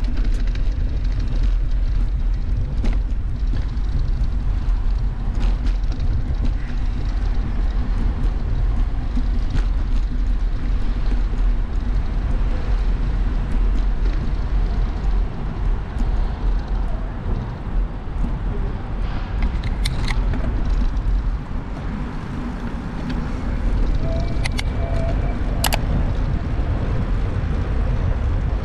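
Bicycle ride recorded on a bike-mounted camera: a steady low rumble of wind on the microphone and tyres over cobblestones and paving, with light street traffic behind. A few sharp clicks or rattles come in the last third.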